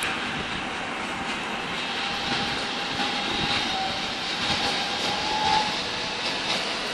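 Freight train of tank wagons rolling past on the station tracks: steady noise of wheels on rails, with a faint whine that rises slightly in the middle.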